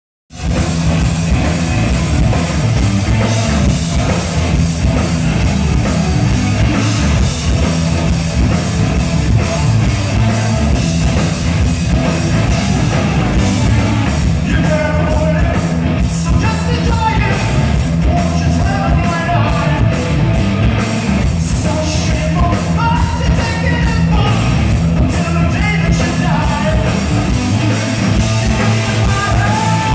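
Rock band playing live and loud with a steady driving beat; singing comes in about halfway through.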